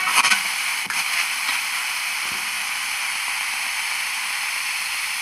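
Steady hiss of FM static from a portable 12-band radio's speaker, tuned off-station, with a single click about a second in.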